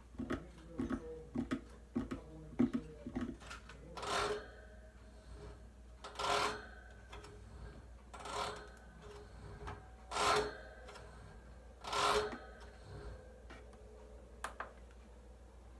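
Fingers tapping and rubbing on a hamster cage. First comes a quick run of light taps, then five rubbing strokes about two seconds apart, each a short swish.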